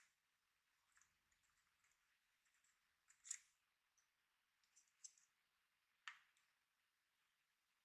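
Faint, scattered clicks and light taps from small computer parts being handled during RAM installation. The clearest click comes a little over three seconds in.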